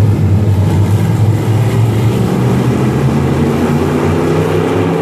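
A pack of dirt-track Crate Sportsman stock cars running past in a line, their V8 crate engines making a loud, steady drone, the pitch rising a little near the end.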